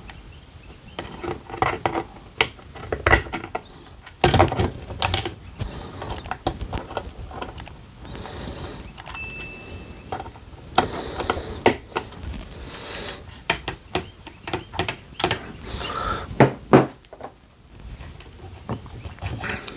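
Irregular clicks, taps and clatter of small hand tools and metal and plastic parts being worked on an RC car's steering bell crank.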